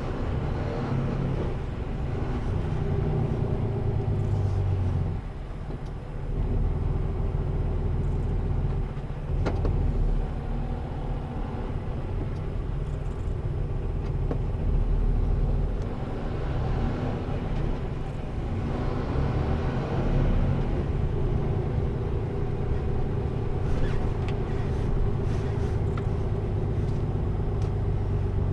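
Mercedes-Benz Antos 1824 18-tonne lorry driving, heard from inside the cab: steady diesel engine rumble and road noise, easing off and picking up again a few times as it moves through city traffic.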